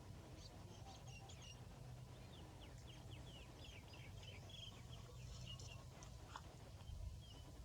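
Faint, rapid chirping of small birds in quick runs of short falling notes, over a steady low rumble.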